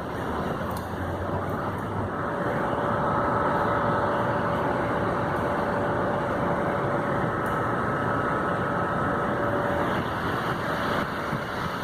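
Steady rush of heavy rain and running water mixed with a road vehicle's engine. From about a second in to near the end, a steady whine sits over the rushing noise.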